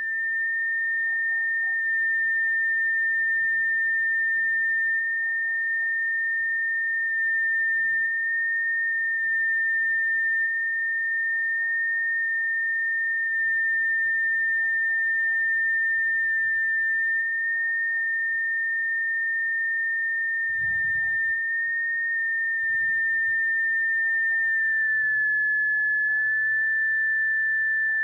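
A continuous high-pitched beep tone, held at one steady pitch throughout and dipping slightly in pitch about 25 seconds in, over faint background noise.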